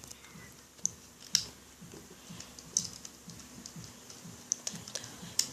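Rubber bands being stretched and released onto the pegs of a plastic bracelet loom: light, irregular clicks and snaps, a few louder than the rest.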